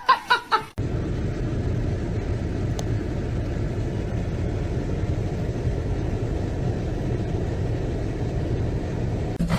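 A steady low rumble, like road noise in a moving car, that starts abruptly about a second in and runs on evenly; just before it, music and a cat's meow are cut off.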